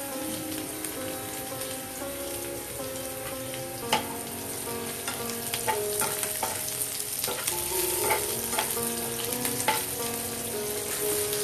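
Sliced onions, green chillies and curry leaves sizzling in hot oil in a nonstick frying pan. From about four seconds in they are stirred, with scrapes and knocks against the pan.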